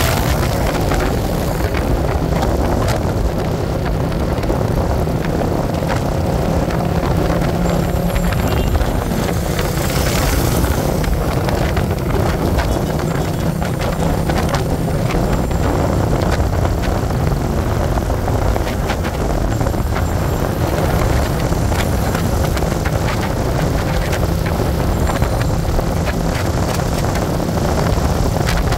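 Steady, loud vehicle running noise: a dense low rumble with hiss above it and no clear pitch, unchanging throughout.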